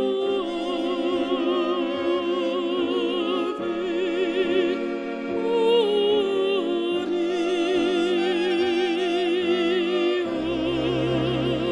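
Classical music: a mezzo-soprano sings long, slow notes with wide vibrato over sustained accompaniment. A low bass note comes in near the end.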